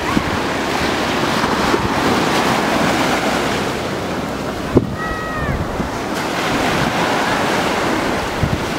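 Small surf breaking and washing up a sandy beach, with wind buffeting the microphone. About five seconds in there is a single sharp knock, followed by a short, high-pitched cry.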